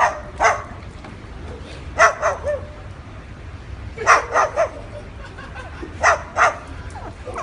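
Cockatoo mimicking a dog's bark: short barks in bursts of two or three, four bursts in all, about two seconds apart.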